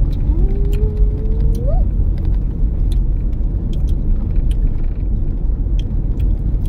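Road and engine noise heard inside a moving vehicle: a steady low rumble, with light rattles and ticks from the cabin. A short tone holds, then rises, about one to two seconds in.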